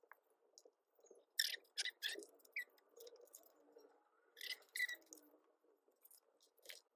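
Light rustling, tapping and crinkling of photocards and plastic binder sleeves being handled, with two brief bouts of crinkling about a second and a half in and again about four and a half seconds in.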